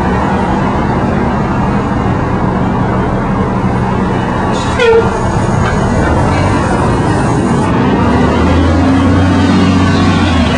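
City street traffic: a steady rumble of vehicle engines, with a brief horn toot about halfway through. The low rumble grows heavier about two seconds before the end.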